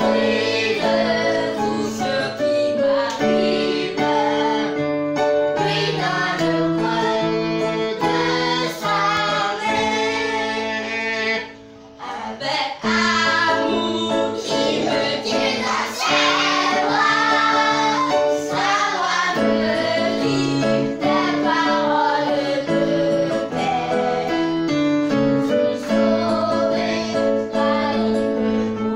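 A children's worship song: singing over a steady instrumental accompaniment. The music dips briefly about halfway through, then carries on.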